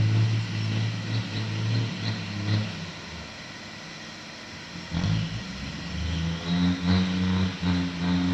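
Heavy diesel engine running. It drops back about three seconds in, then picks up again about five seconds in with revs rising and falling.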